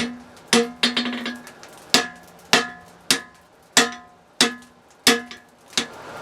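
Hammer blows on hot steel bar stock on an anvil, about ten strikes at an even pace, each with a short metallic ring: the bar is being straightened out to lengthen it for a forged holdfast.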